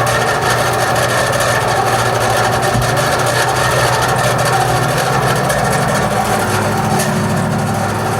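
Air conditioner fan motor running with a steady hum and a loud screeching from its bearing. The noise persists after the bearing was greased, and the owner wonders whether the motor needs replacing.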